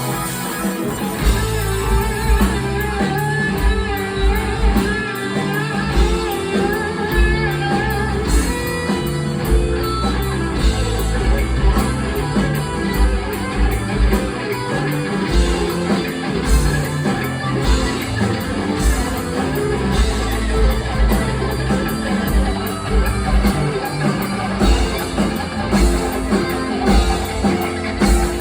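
Rock band playing live, an instrumental passage: electric guitar over bass guitar and drum kit, with a steady beat.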